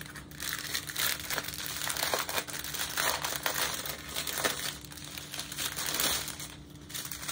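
Small plastic bags of diamond-painting rhinestone drills crinkling and rustling as they are handled, in irregular crackles.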